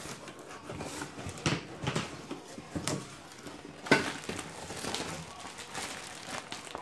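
Cardboard packaging handled: flaps and an inner carton are shifted, with scattered knocks and scrapes, the sharpest about four seconds in. Plastic wrapping crinkles as it is lifted out.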